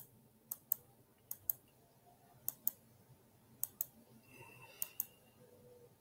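Computer mouse clicking: five pairs of sharp clicks, each pair a quick double tick, coming about once a second.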